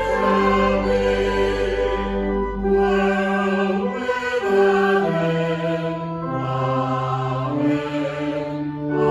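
Slow, reflective music of long held chords that change every second or two, with a choir-like sound.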